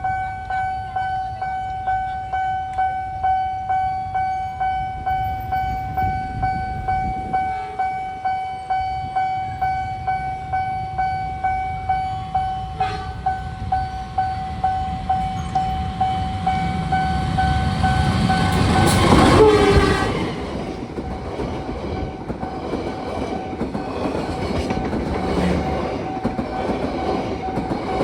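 Railway level-crossing warning alarm sounding a steady pulsing tone, about two pulses a second, warning that a train is coming. A train then passes, loudest about two-thirds of the way in, and its wheels clatter over the rails as the alarm is drowned out.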